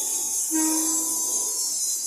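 Horn of a JR 205 series electric commuter train giving a short toot about half a second in, over a steady high hiss from the passing train.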